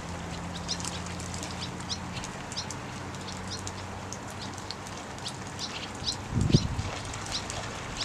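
Small birds chirping, many short high calls scattered throughout, over a low steady hum. A brief low thump comes about six and a half seconds in.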